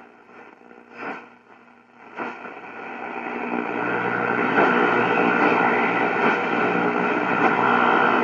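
Zenith Royal 1000 Transoceanic transistor shortwave radio playing through its speaker: static with a few short crackles, then a steady band of hiss with faint steady tones that swells up from about three seconds in.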